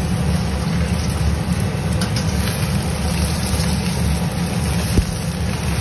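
A steady low machine hum, with one sharp knock about five seconds in.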